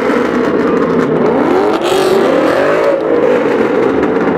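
Ford Mustang engines revving and accelerating hard as the cars pull out, with loud exhaust. The engine note rises in pitch several times, most strongly in the middle.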